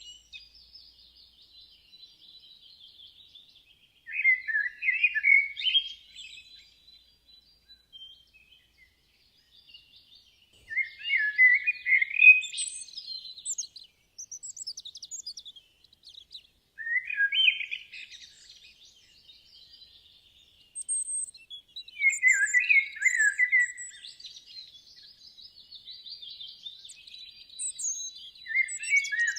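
Songbirds singing: one bird repeats a short, busy song phrase about every six seconds, five times in all. Fainter, higher twittering and chirps from other birds carry on between the phrases.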